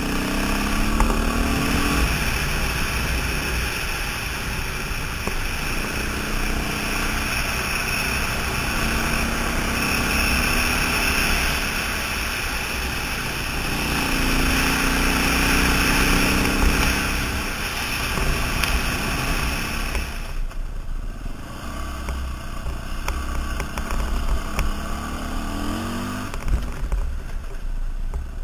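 KTM 530 single-cylinder four-stroke dirt bike engine running under way, its pitch rising and falling with the throttle. A rushing hiss of wind over the microphone lies under it and thins out about two-thirds of the way through.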